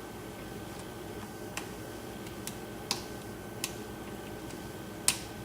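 Lock pick and tension wrench clicking on the pins in the renter-side keyway of an antique Yale pin-tumbler safe deposit lock fitted with serrated security pins: about five sharp, irregular clicks over a faint steady hiss, the loudest near the end.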